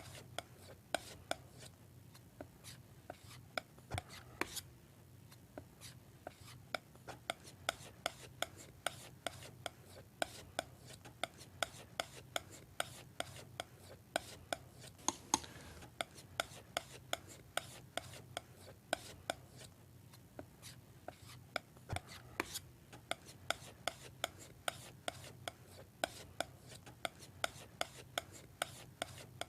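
Palette knife mixing oil paint on a palette, tapping and scraping through the paint in a steady run of sharp clicks, about two to three a second.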